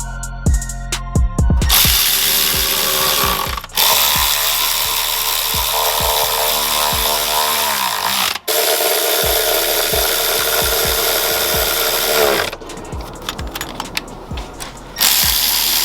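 A power tool runs in long bursts, its pitch sagging each time it stops, with a stretch of rapid clicking near the end. Background music with a steady beat plays underneath.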